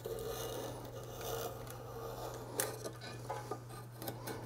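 Small precision screwdriver turning the screws of a resin 3D printer vat's metal clamping frame while the FEP film is being changed: faint scraping and rubbing, with a few light clicks past the middle.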